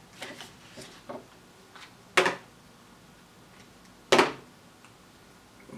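Handling noise on a workbench: a few light clicks, then two sharp knocks about two seconds apart as hard objects are picked up and set down on the table.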